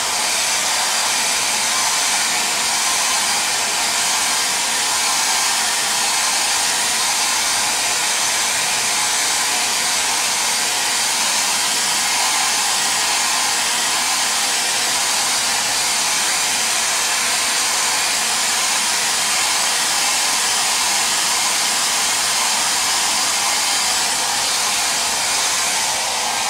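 Handheld hair dryer blowing steadily, drying a freshly applied light coat of leather dye so it is fully dry before the next coat.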